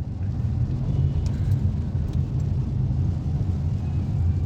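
Citroën car running, a steady low rumble with a faint hiss above it, heard from inside the cabin.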